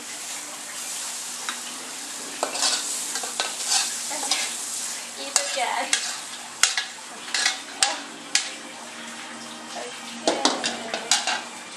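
Long metal spatula scraping and clacking against a steel wok as pad Thai rice noodles are stirred and tossed, over a steady hiss of frying. The sharp scrapes and clicks come more often in the second half.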